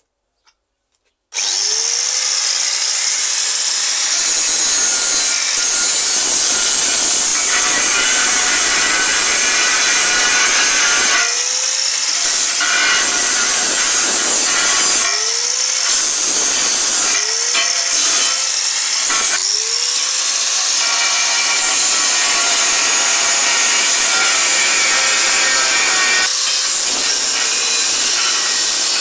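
Angle grinder with a cutting disc slicing through a rusty steel car wheel rim. It starts about a second in and runs loud and steady, with several brief dips where its pitch drops and climbs back up as the disc bites and lifts off the metal.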